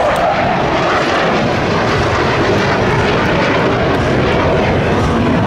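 A jet aircraft flying past low overhead, its engine noise loud and steady.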